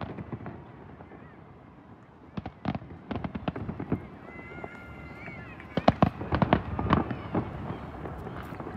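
Distant fireworks going off in scattered sharp bangs and crackles, starting about two seconds in and coming thicker near the end.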